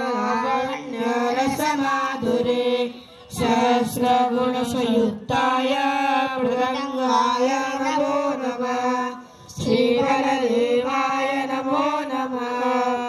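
Sung chanting in long held notes, mostly on one steady pitch with slight wavering, breaking off twice for breath, about three and nine seconds in.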